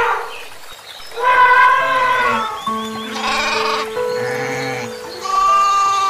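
Goat bleating several times, with music playing under it in long held notes.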